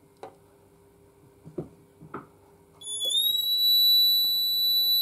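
A few light clicks, then the ESP MAG 2 fire alarm panel's internal buzzer gives one steady high-pitched beep, about two and a half seconds long, starting about three seconds in. Its pitch rises slightly at the onset and it cuts off abruptly. The panel is being reset after a detector test.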